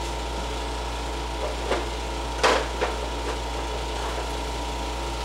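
Window air conditioner running with a steady hum. A few brief knocks or taps come near the middle.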